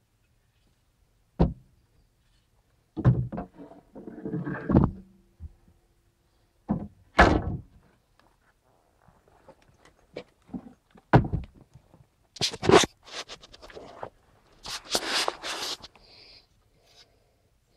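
A string of separate hard clunks and knocks from handling a tool, some ringing briefly, with two longer scraping, rustling stretches near the end. No motor is running.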